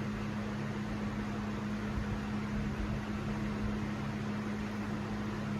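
Ceiling fan running: a steady electric motor hum over a wash of moving-air noise.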